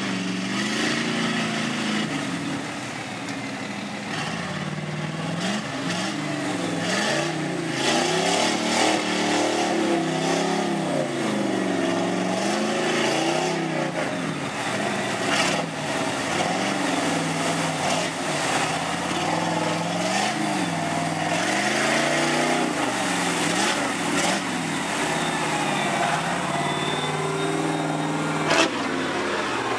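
Lifted Chevrolet pickup's 350 small-block V8 revving up and down again and again as the truck churns through deep mud on tractor tires, its pitch rising and falling every second or two. A brief sharp knock near the end.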